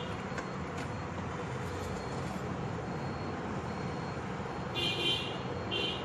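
Steady background noise of road traffic, with two short, high vehicle-horn toots near the end.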